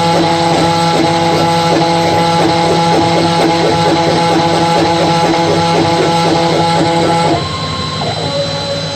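Homemade CNC router cutting wood on a roughing pass. The router spindle runs steadily under the stepper motors, which whine at a few fixed pitches in a fast, even, repeating pattern as the axes shuttle back and forth. About seven seconds in the pattern stops, the sound drops a little, and the motors change to a different whine as the move changes.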